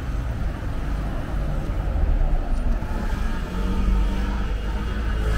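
Road traffic on a city street: a steady low engine rumble from passing vehicles.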